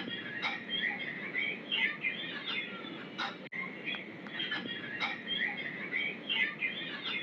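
Many birds chirping at once, short high chirps overlapping without a break, with a momentary dropout about halfway through.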